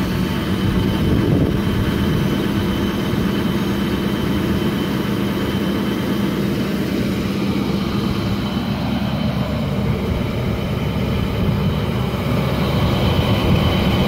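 Chevy Silverado Duramax turbo-diesel V8 idling steadily through its stock exhaust, with barely any turbo whistle above the idle.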